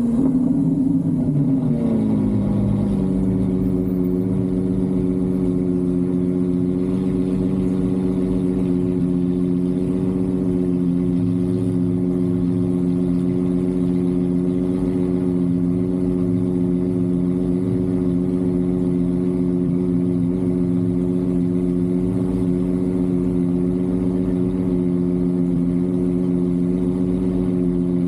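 A car engine whose note drops over the first couple of seconds, then runs on at a steady pitch.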